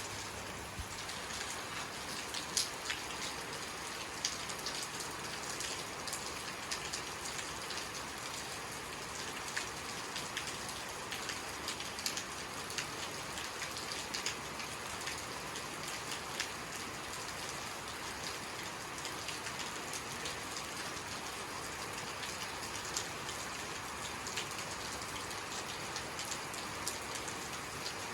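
Steady rainfall: an even hiss of rain with individual drops ticking sharply on a surface at irregular moments.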